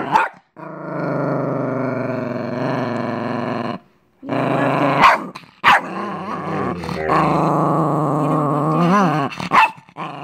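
Chihuahua growling angrily in long unbroken stretches, with a short break about four seconds in. In the second half a few short sharp outbursts cut in, and the growl wavers in pitch near the end.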